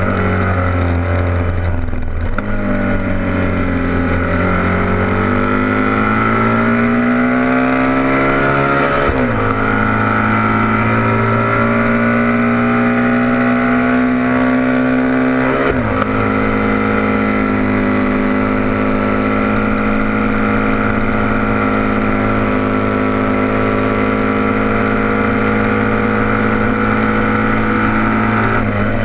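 Racing motorcycle engine heard from a camera mounted on the bike, under hard acceleration. Its pitch dips about two seconds in, then climbs, drops sharply at two upshifts about nine and sixteen seconds in, and then holds steady at high revs, with wind rushing past.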